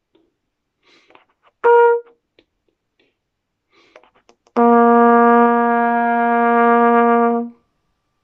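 Trumpet playing a short, detached note about two seconds in, then a lower note held for about three seconds. It is an exercise in clean, exact attacks out of silence.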